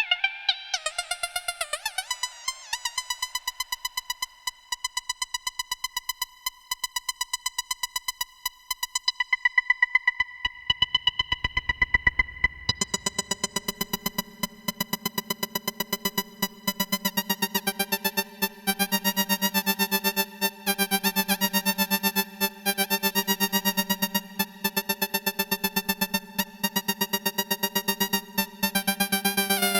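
Yamaha CS10 and CS01 analogue monophonic synthesizers holding a sustained note, with a lower, richer note coming in about halfway through, over a fast even rhythm from a Boss DR-220A drum machine.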